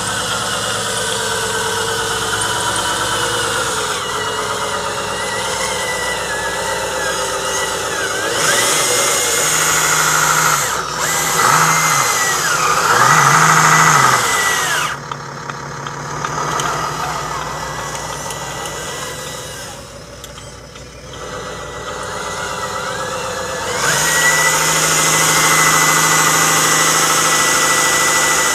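Radio-controlled 1/10-scale model truck driving, its drive motor and gears whining. The whine rises to a steady high pitch and falls away again several times, with two long loud runs, the second near the end.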